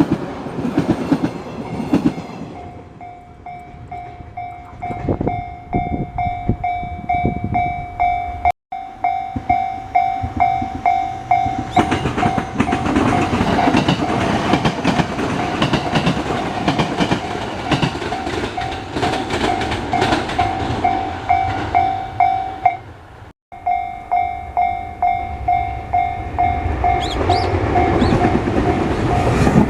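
Japanese level-crossing warning bell ringing in a fast, steady repeating ding while a train runs over the crossing, its wheels clicking over the rail joints. The train noise swells loudest in the middle.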